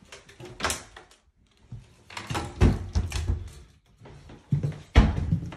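Wooden bathroom vanity cabinet door being handled, with knocks and rustling, then shut with a sharp thunk about five seconds in.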